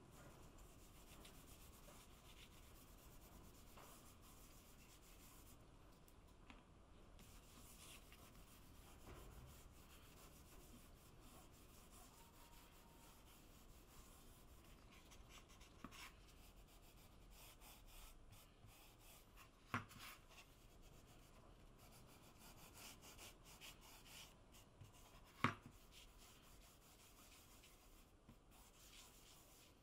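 Faint rubbing and scrubbing of a small cloth pad spreading antique wax, softened with paint thinner, across a bare wooden board. Two short knocks, about six seconds apart, stand out in the second half.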